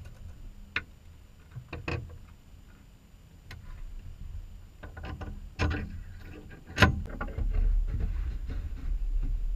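Scattered sharp clicks and knocks of metal hardware and tools being handled during light-aircraft wing assembly: a few light ticks early, a cluster after about five seconds, and the loudest knock near seven seconds. A low rumble sets in after about seven and a half seconds.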